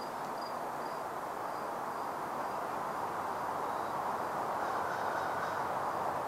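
Outdoor ambience: a steady rushing hiss with faint, short high chirps repeating every half second or so.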